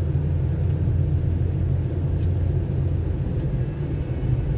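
Car driving along a road, heard from inside the cabin: a steady low rumble of engine and road noise.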